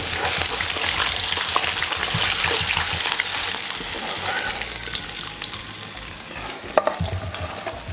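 Chicken pieces sizzling in hot oil and butter in a cast-iron kazan, the sizzle slowly easing off as the chicken is lifted out. A sharp knock near the end.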